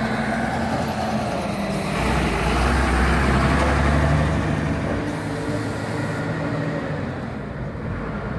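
Diesel tipper truck driving past close by: its engine rumble swells to a peak about three to four seconds in as it draws level, then fades as it moves away.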